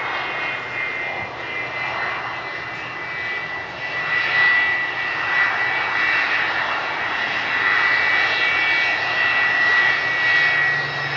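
Twin rear-mounted Pratt & Whitney JT8D turbofans of an MD-81 airliner running at low thrust as it rolls along the runway after landing. A steady high whine sits over a roar, and it grows louder about four seconds in.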